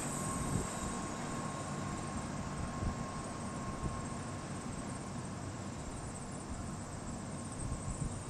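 Steady low rumble of outdoor urban and rail-yard ambience, as of distant road traffic, with a light hiss. A faint high tone fades out about a second in.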